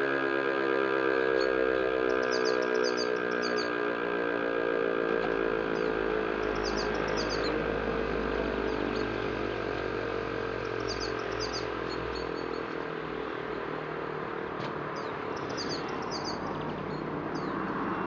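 DS 977 rotor siren running down after being switched off at the end of a siren test: its tone slides slowly lower and fades over the first several seconds, leaving a low rumble as the rotor coasts. Birds chirp briefly several times.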